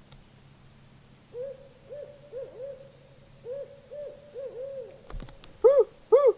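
Owl hooting: a run of short, pitched hoots, faint at first and much louder near the end.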